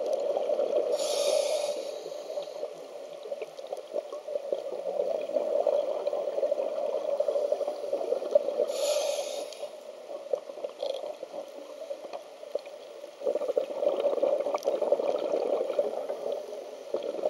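A scuba diver breathing through a regulator underwater. There are two short hissing inhalations, about a second in and again around nine seconds in, over a steady crackling gurgle of exhaled bubbles that swells again in the last few seconds.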